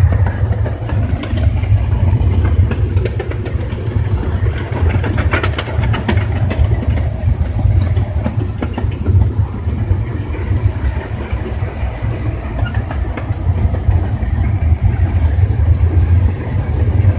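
Steady low rumble with light clatter in the cab of a small steam locomotive, the Oakland Acorn, during a cab ride, heard through a phone microphone whose sound is dominated by low rumble.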